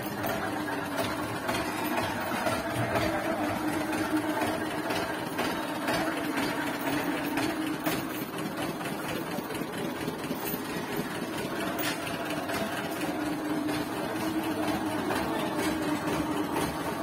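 An engine running steadily at idle, an even hum with a few light clicks.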